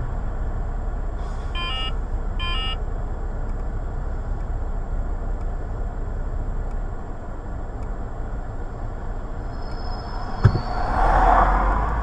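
Steady low rumble of idling traffic heard through a dashcam, with two short pitched beeps about two seconds in. Near the end there is a sharp knock, then a brief hiss.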